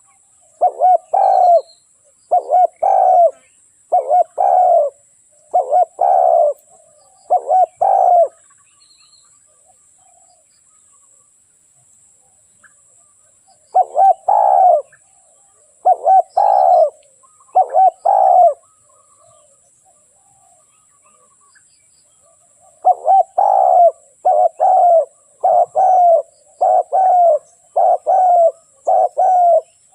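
Spotted dove cooing: a run of repeated two-part coo phrases, about one a second. It stops twice for a few seconds and picks up again.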